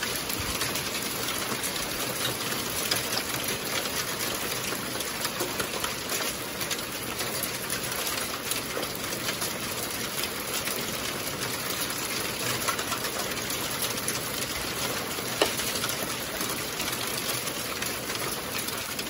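Rain and small hail falling steadily: a dense, continuous patter of small impacts, with a few sharper ticks standing out.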